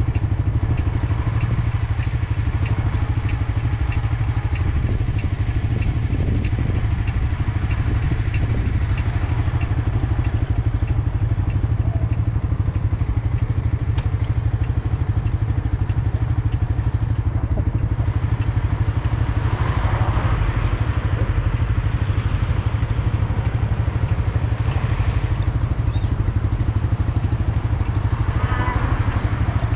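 Suzuki GSX-R motorcycle engine idling steadily while stopped, with a faint regular ticking about twice a second through roughly the first third.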